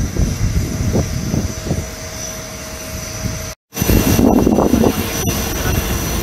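Steady aircraft noise on an airport apron: a constant high whine over a rumbling hiss, with low buffeting. The sound cuts out for a moment about three and a half seconds in and comes back louder.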